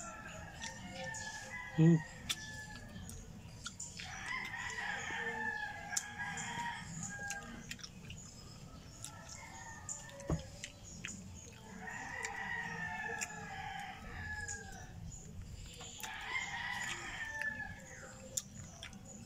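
Rooster crowing three times, each call a couple of seconds long and falling slightly at the end, with scattered short clicks and a sharp knock about ten seconds in.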